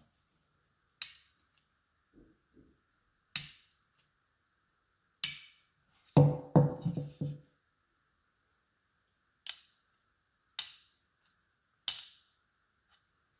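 Small-parts handling of a plastic-bodied mini spirit level and a precision screwdriver: a series of separate sharp clicks as the screwdriver and the hard plastic housing knock together. About halfway through comes a quick cluster of heavier knocks.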